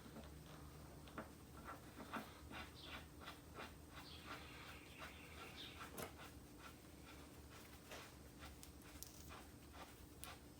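Near silence with faint, irregular light clicks and ticks scattered throughout, a little busier in the first half.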